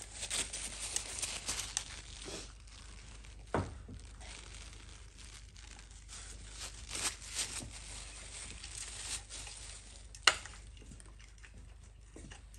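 Paper towel rustling and crinkling in the hands during work on a bare engine crankshaft. There is a dull knock a few seconds in, and a sharp click, the loudest sound, late on.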